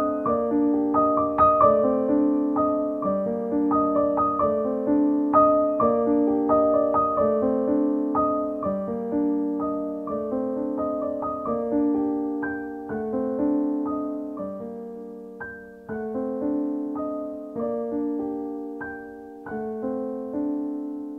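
Background solo piano music: single notes struck one after another and left to ring, the music slowly getting quieter and fading out at the end.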